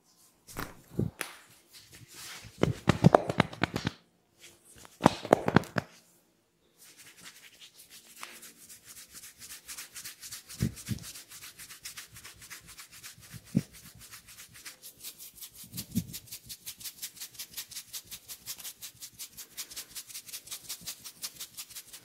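Hands rubbing over the face and ears in a few louder strokes in the first six seconds. Then fingertips scratch and rub briskly through the hair and scalp in a quick, even rhythm.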